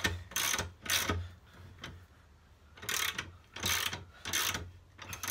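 Ratchet socket wrench winding the drive screw of a scissor box lift raising a motorcycle: a burst of ratchet clicking with each swing of the handle, about two a second, with a pause of about a second and a half in the middle.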